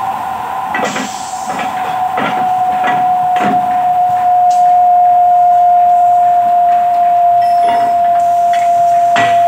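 Milling machine's electric motor and cutter running with a steady high whine, with several knocks in the first few seconds.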